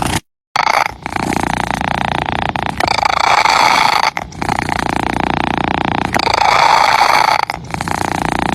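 Domestic cat purring close to the microphone, a continuous rattling purr that swells and dips with each breath, about every one and a half to two seconds. There is a brief cut to silence just after the start.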